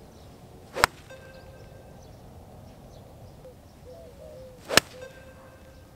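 Two sharp clicks about four seconds apart, the second the crisp strike of a 5-iron hitting a Vice golf ball off fairway turf, a full iron shot.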